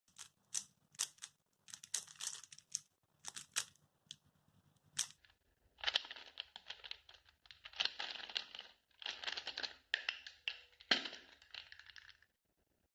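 Plastic 3x3 Rubik's cube being turned by hand: a string of separate sharp clacks for the first few seconds, then from about six seconds in, quick runs of rapid clicking turns in bursts, as in a speed solve.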